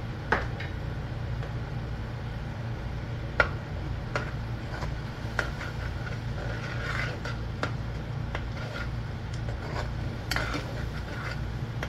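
Metal spoon stirring and scraping ground spices and fried onions around a metal cooking pot, with a few sharp clinks of the spoon against the pot, as the spice paste fries. A steady low hum runs underneath.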